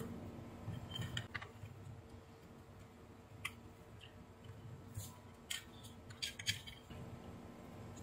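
Faint, scattered clicks and light knocks of a plastic AC adapter casing, its circuit board and test-lead clips being handled.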